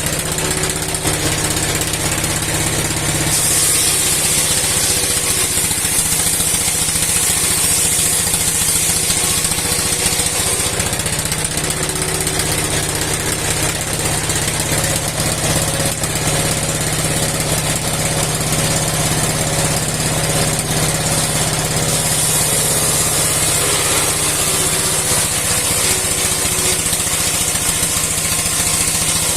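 A 60-year-old engine driving a steel sawmill blade, running steadily with a slight waver in its note. A high hiss swells in twice, from about 3 to 11 seconds and again from about 22 seconds near the end.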